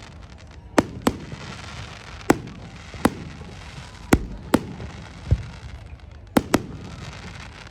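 Fireworks display: about nine sharp bangs from bursting shells at uneven intervals, some in quick pairs, over a steady background noise.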